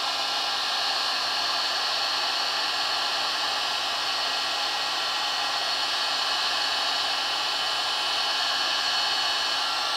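Hot air gun blowing steadily, its fan giving a whine over the rush of air, as it shrinks a double layer of heat-shrink tubing onto a worn clutch spline. It cuts off at the very end.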